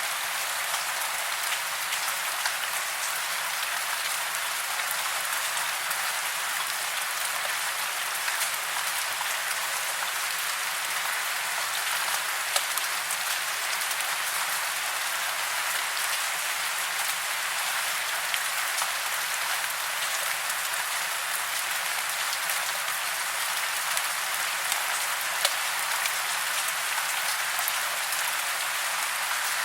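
Steady rain falling, an even hiss with many small drop impacts ticking through it.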